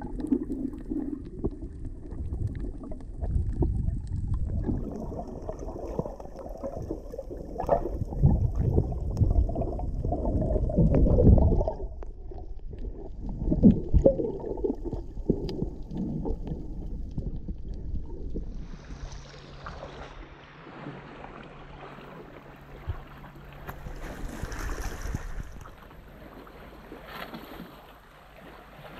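Muffled underwater sloshing and rumbling of water against a submerged camera as snorkelers swim, with a few louder surges. About two-thirds of the way in it changes to a quieter, brighter hiss of gently lapping sea water with a faint steady hum.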